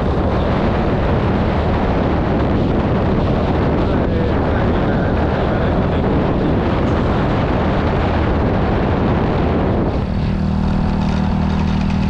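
Motorbike riding along a road: a steady rush of wind on the microphone over the engine's steady hum. About ten seconds in the wind rush drops and the engine hum stands out more clearly.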